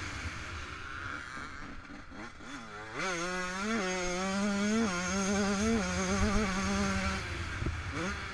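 Yamaha YZ125 two-stroke motocross engine under riding load: off the throttle and low for the first few seconds, then opening up sharply about three seconds in and holding high revs with short rises and dips, easing off again near the end.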